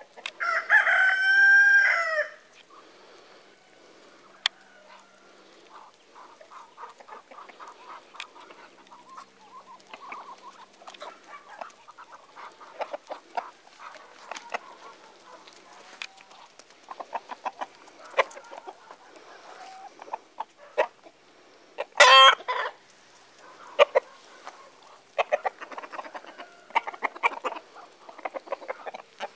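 A rooster crows once at the start, a pitched call of about two seconds. After that the farmyard flock of hens and Muscovy ducks keeps up soft clucking and chattering, with one short loud squawk about 22 seconds in.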